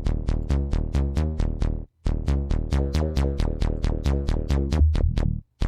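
Electronic synthwave loop playing back from LMMS: a fast, even pulse of short synth notes, about eight a second, over a steady low bass. Playback cuts out briefly twice and starts again, as the synth's filter cutoff envelope is being made faster.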